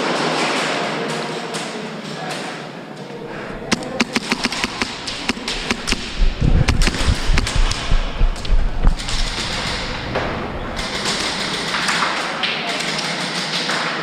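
Airsoft gameplay: an uneven, rapid run of sharp cracks and knocks, from about four seconds in to about nine and a half seconds in, consistent with shots and BBs striking barriers. The cracks sit over a steady hiss, with a heavy low rumble through the middle of the run.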